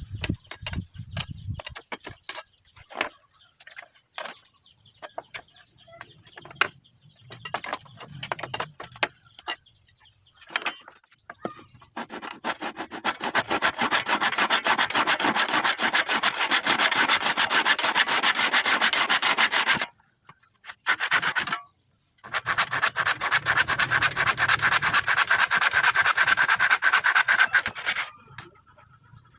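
Wood being rubbed hard by hand in two long spells of rapid abrasive strokes, after a stretch of scattered light taps and knocks.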